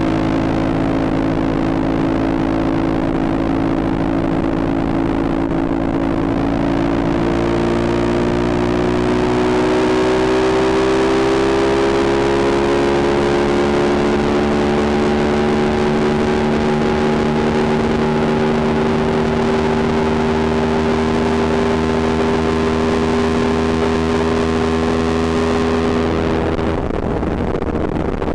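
CFMOTO 450SR's parallel-twin engine running under way at road speed, its note rising slowly over the first dozen seconds as the bike gathers speed, then holding steady. Near the end the engine note fades away.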